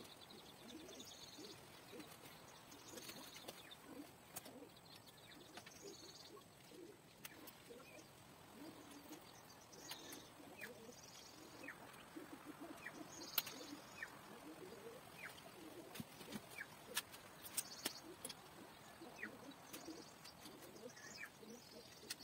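Faint outdoor birdsong: doves cooing low and repeatedly, and small birds giving short falling chirps. A few sharp clicks come through as a hex key works on a bike's handlebar stem, the loudest about two-thirds of the way in.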